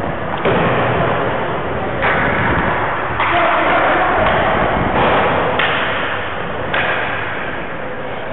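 Hockey skate blades scraping and carving the rink ice in strides: a sudden burst of scraping hiss about every one to two seconds, five in all, each fading as the skater glides.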